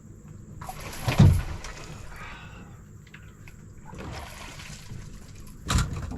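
Water splashing and sloshing beside a fishing boat, with a heavy thump about a second in and a sharp knock near the end.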